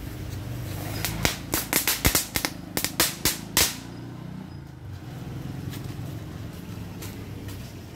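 Small ground firework going off on paving stones: a rapid, irregular string of about a dozen sharp pops and cracks lasting about two and a half seconds, then stopping.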